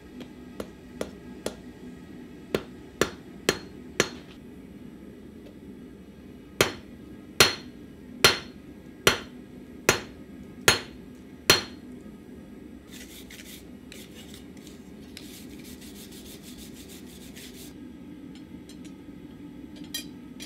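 Hand hammer striking red-hot rebar on a steel anvil: a few lighter blows, then a run of seven harder, ringing blows at just under one a second. After them comes a few seconds of rough, raspy scraping.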